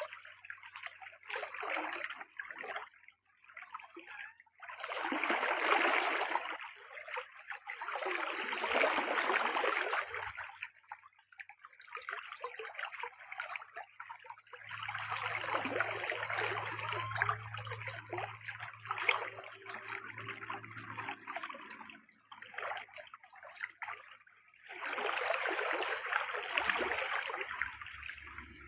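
Water running and splashing in uneven stretches of several seconds, with short quieter gaps between.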